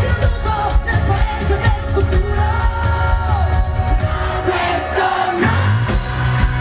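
Female pop singer singing live with a band, heard from the audience, with heavy bass. About three seconds in she holds a note that bends downward. About five and a half seconds in a steady deep bass note comes in.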